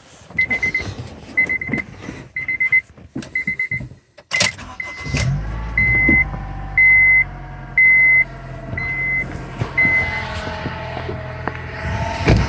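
A car's warning chime beeps about once a second, then a 2002–2005 EP3 Honda Civic Si engine cranks, starts about five seconds in and idles. Over the idle runs a steady whine that slowly drops in pitch: the noise of a bad water pump pulley.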